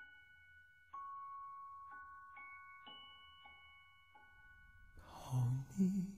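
Slow, sparse bell-like notes of soft music, each struck note ringing on for a second or more. A low voice comes in about five seconds in.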